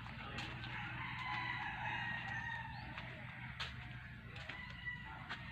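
A rooster crowing, one long call starting about a second in, over a steady low hum and a few sharp clicks.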